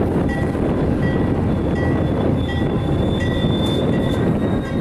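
Amtrak California bilevel passenger cars rolling past with a steady low rumble, and thin high-pitched wheel squeals that come and go, one held for over a second in the middle.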